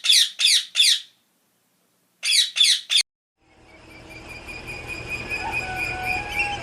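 Songbird calls: four loud, quick calls, each sweeping down in pitch, then after a pause three more, the last cut off abruptly. About a second later a dense chorus of many birds singing fades in over a low steady hum.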